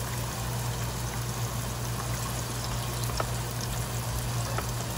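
Garlic frying in hot oil: a steady sizzle with a few sharp pops, over a steady low hum.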